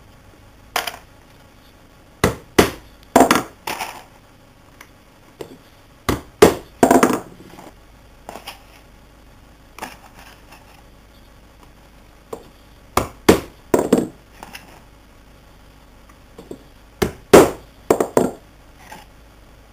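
A wooden mallet tapping small wooden clamp parts together on a board: sharp wooden knocks in clusters of two to five every few seconds, with lighter clicks of the pieces being handled in between.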